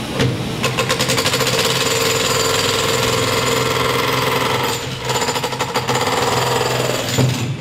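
Milwaukee MX Fuel 72V cordless breaker (electric jackhammer) chiselling into concrete with rapid, evenly spaced blows. It pauses briefly about five seconds in, hammers again, and stops near the end.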